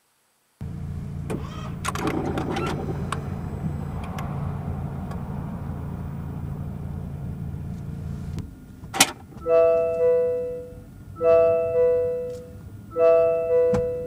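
Honda Step WGN hybrid heard from inside the cabin as it powers up: a steady low hum with several clicks while the system comes to Ready. About nine seconds in the hum stops, a sharp click sounds, and then the car's two-tone warning chime repeats three times, about every 1.7 seconds, as the shift goes into reverse.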